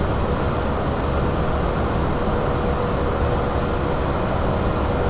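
Steady flight-deck noise of an Airbus A340 climbing after take-off: a low airflow and engine rumble, with a faint steady hum.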